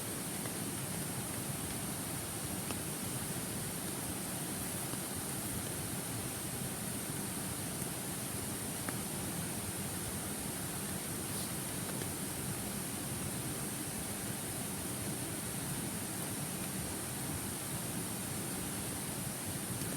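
Steady rushing murmur of a mountain stream flowing, with a few faint clicks scattered through it.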